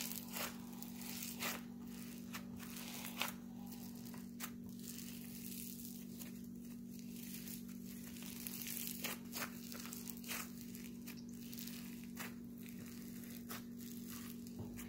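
Foam slime packed with tiny foam beads being kneaded and squeezed by hand, giving irregular crackles and squishes.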